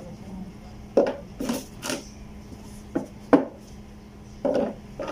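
A run of short knocks and clinks of hard objects being handled, about six spread over a few seconds, over a faint steady hum.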